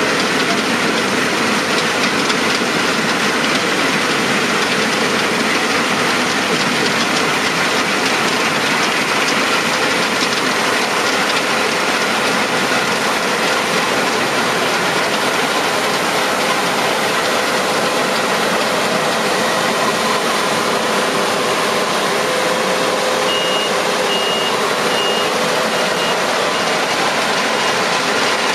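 Claas Lexion 750 combine harvester running steadily and loudly, its Caterpillar C13 six-cylinder engine and threshing gear making a continuous mechanical drone. Near the end, a high beep starts repeating at an even pace over it.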